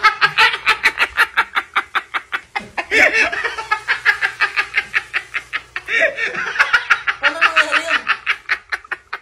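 Hard, breathy laughter in rapid pulses of about six a second, with a few voiced, pitched stretches of laughing about three seconds in and again from about six to eight seconds.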